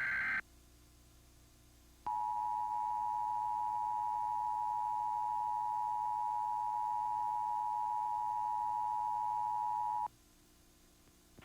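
Emergency Alert System broadcast audio: a short burst of the SAME header's data tones cuts off at the start. About two seconds in, the EAS attention signal begins, a steady two-tone tone (853 and 960 Hz) held for about eight seconds and then cut off sharply.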